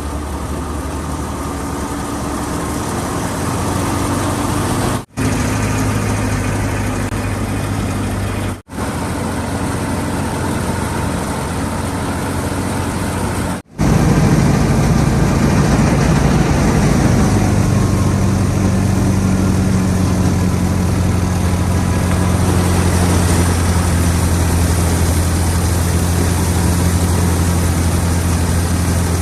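Fiat 480 tractor's diesel engine running steadily under load, driving a wheat thresher, with a constant low hum. The sound drops out briefly three times where clips are joined, and runs a little louder after the last cut.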